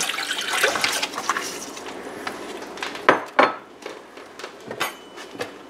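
Water pouring from a glass measuring cup into a stainless steel saucepan, tailing off over the first second or so. About three seconds in come two sharp knocks a moment apart.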